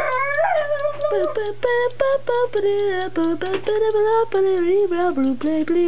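A woman's voice singing nonsense syllables in a wavering, sliding tune, with a steady low hum underneath.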